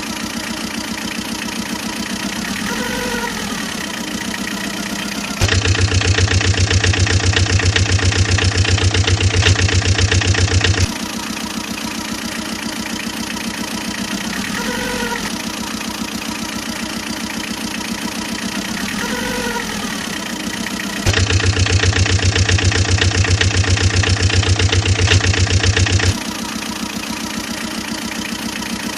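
Vehicle engine running with a rapid, even pulse, twice stepping up for about five seconds to a louder, heavier, lower running. A few short rising-and-falling chirps sound over it.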